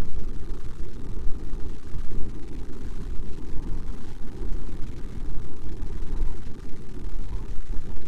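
Wind buffeting the microphone of an outdoor nest camera: a loud, gusty low noise that rises and falls.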